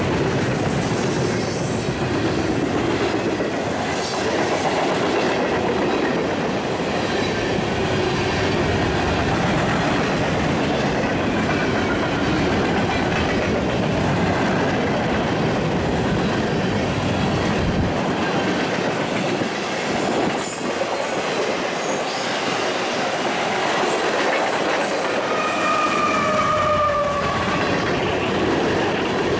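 Freight train of tank cars, gondolas and boxcars rolling past at close range: a steady loud rumble and rattle of steel wheels on the rails. A brief high wheel squeal comes in near the end.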